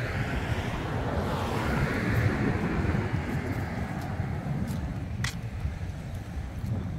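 Wind buffeting the microphone as a steady low rumble, over a wash of outdoor noise that eases slightly after a couple of seconds; a brief high-pitched sound cuts in about five seconds in.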